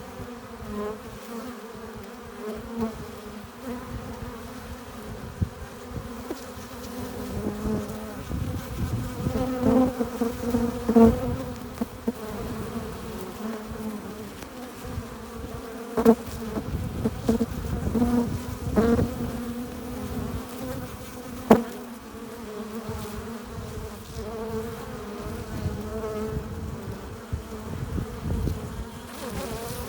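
Honey bees buzzing at a hive entrance: a steady low hum from many wings, swelling now and then as bees pass close. There are a few sharp knocks, the loudest about halfway through and again a few seconds later.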